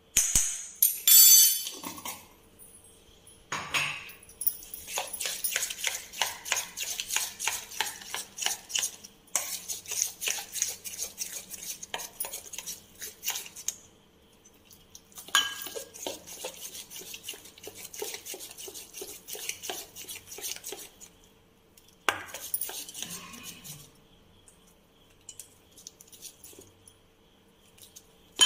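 Steel spoon beating semolina batter in a stainless steel bowl, clinking and scraping against the metal in quick repeated strokes. The strokes come in long runs with short pauses, after a louder metal clatter at the start.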